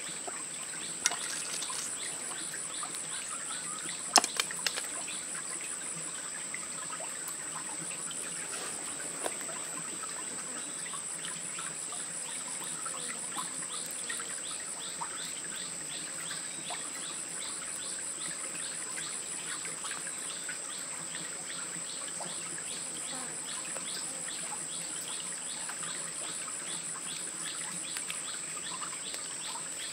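Forest insects droning steadily at a high pitch, with a second caller repeating short chirps through the second half. A few sharp clicks sound in the first five seconds.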